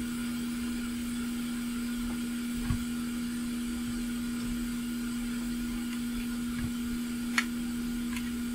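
Steady hum of a small electric blower on the repair bench, with a few faint sharp ticks in the last couple of seconds.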